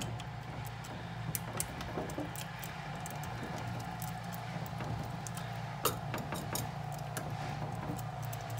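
Vise grips clamped on a soft lead key being wiggled in a Ford 5-pin lock cylinder held in a vise: scattered small metallic clicks and rattles as the pins bind on the key to mark it for impressioning. A steady low hum runs underneath.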